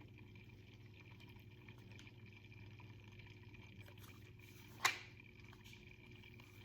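Near silence: faint steady room hum, broken once about five seconds in by a single short click or knock from the device being handled.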